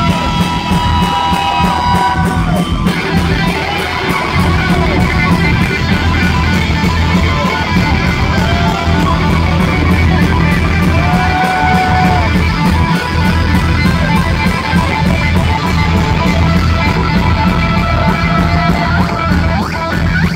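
Live heavy metal electric guitar played loud through an amplifier, with an object pressed against the strings like a slide, giving swooping pitch glides over a steady low drone. The sound is harsh and crowded.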